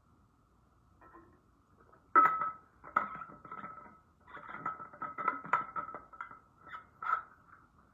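Objects being moved around and set down: a run of knocks, taps and light clinks, the loudest about two seconds in, over a faint steady high tone.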